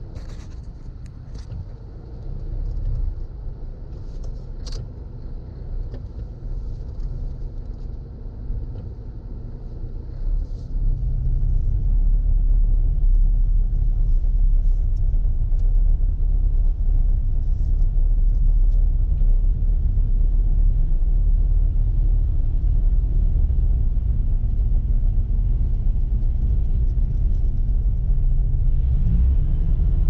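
Car driving, heard from inside the cabin: a steady low rumble of engine and tyres on a road covered in dried flood mud, with a few small clicks in the first few seconds. The rumble steps up and grows louder about eleven seconds in, then holds steady.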